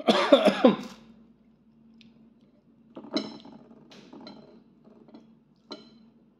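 A short non-word vocal sound in the first second, then several light clinks of a ceramic bowl and spoon, over a steady low hum.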